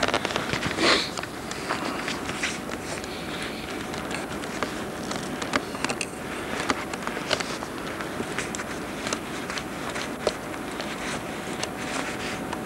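Footsteps crunching through snow: irregular crisp crackles and clicks over a steady hiss, with a short rush of noise about a second in.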